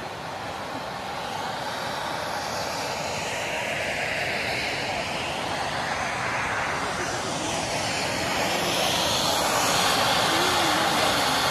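Several ground fountain fireworks (anar) spraying sparks with a steady, dense hiss that grows louder, with a slowly sweeping whoosh running through it.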